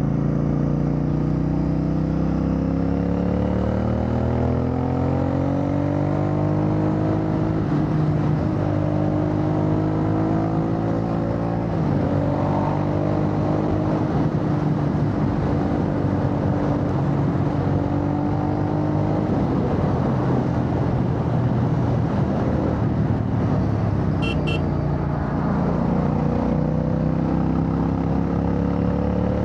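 Royal Enfield Bear 650's parallel-twin engine running through an aftermarket Red Rooster Performance exhaust while riding. The pitch rises as it accelerates over the first several seconds, drops about twelve seconds in as it shifts up, and holds steady before climbing again near the end. A brief high beep comes partway through.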